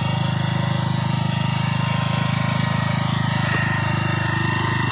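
Walk-behind power tiller's engine running steadily at an even speed, with a fast, regular pulse.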